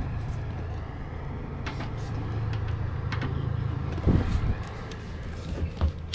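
Electric space heater running with a steady low hum, just switched on and heating. A few short knocks about four and six seconds in.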